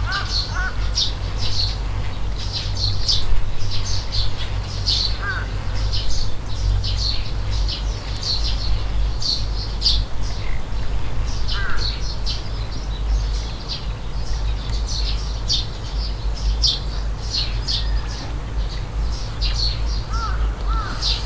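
Small birds chirping, short high calls repeating several times a second throughout, with a lower curved call now and then, over a steady low rumble.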